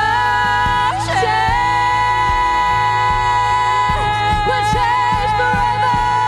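Worship band playing a contemporary Christian song, with a singer holding one long high note from about a second in over the band.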